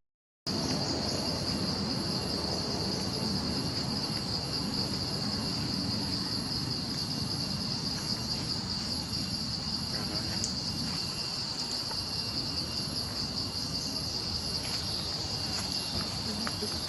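A steady, high-pitched chorus of insects, such as crickets or cicadas, that comes in after a brief silence at the start.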